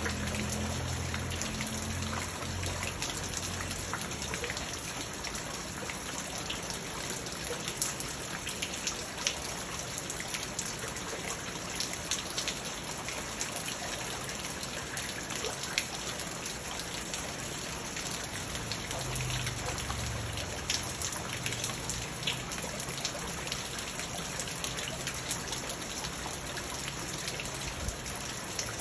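Steady rain falling on a garden pond and its surrounding stones and plants: a dense, even patter with many small individual drop ticks.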